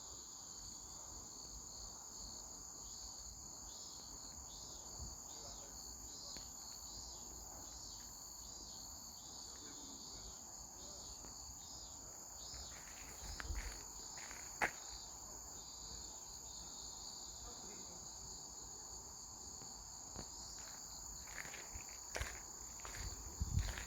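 A steady, high-pitched chorus of crickets chirping. It is broken by a few short knocks about halfway through and again near the end.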